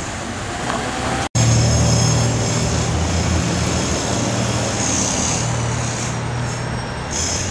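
Street noise with a steady low engine drone. It cuts out briefly about a second in, then comes back louder.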